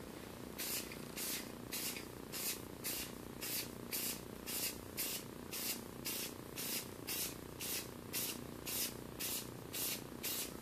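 Aerosol spray paint can sprayed in short, quick hissing bursts, about two a second, in a spray-and-stop rhythm for light, even coats.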